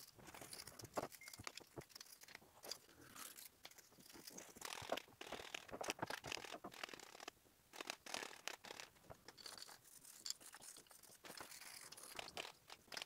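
Faint, irregular scratching of a toothbrush's bristles scrubbing a diesel-wet aluminium cam bearing bridge, cleaning grime out of its oil passages.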